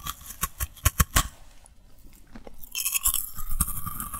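Close-miked crunching and chewing of candy: a quick series of sharp crunches in the first second or so, then a denser crackling stretch from a little under three seconds in.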